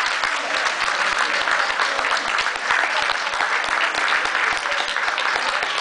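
Football crowd applauding a goal: a dense, steady patter of many hands clapping.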